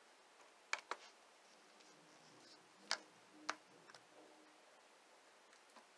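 A handful of faint, sharp clicks in near quiet, the clearest about three seconds in and half a second later: a laptop mouse or trackpad clicking to start a recording.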